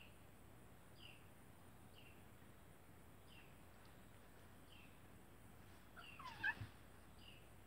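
A cat gives one short, warbling yowl about six seconds in while play-fighting with another cat. Behind it, a faint high chirp repeats about once a second.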